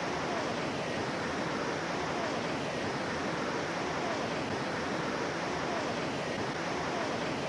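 Steady rush of a mountain river's flowing water, an even wash of noise with no breaks.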